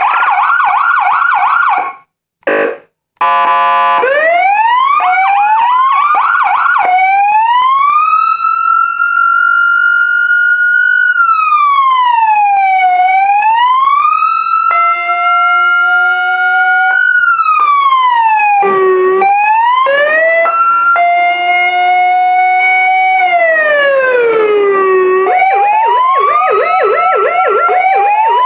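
Electronic vehicle siren (ASH8B 400-watt module driving slim siren speakers) switching through its tone modes. It opens with a fast yelp, breaks off briefly for a short horn-like blast, then runs through quick rising chirps, slow wail sweeps up and down, and a rapid yelp again near the end.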